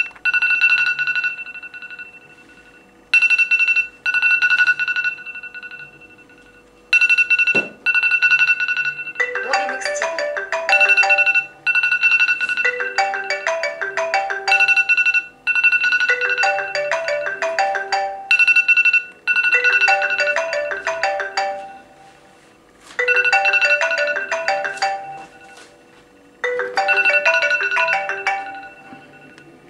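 iPad alarm tones ringing in repeated bursts of about two to three seconds, each a pair of steady high tones. About nine seconds in, the iPhone 6S's incoming-call ringtone, a marimba-like run of quick notes, starts and plays over the alarms.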